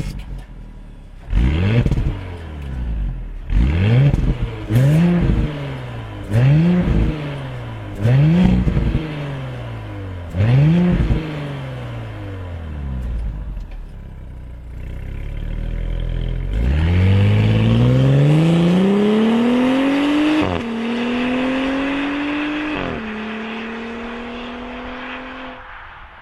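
2017 Audi SQ5's 3.0 TFSI V6 petrol engine, heard through its downward-pointing exhaust, revved in about seven quick blips from idle, then accelerating away with two upshifts, each a sudden drop in pitch, and fading.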